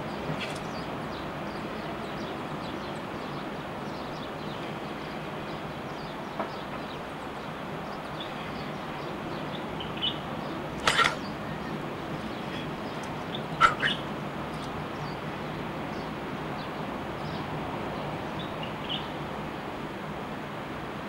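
Steady wash of ocean surf and wind, with a few short, high chirps in the middle, two of them sharper and louder.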